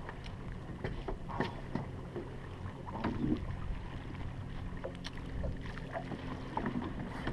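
A boat's motor running with a steady low hum, with scattered knocks and clicks over it.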